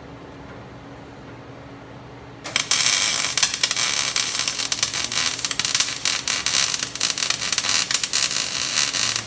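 After a low steady hum, an electric arc welder strikes up about two and a half seconds in and crackles loudly and continuously, tack-welding a crankcase evac tube onto a steel exhaust header tube. The crackle stops at the very end.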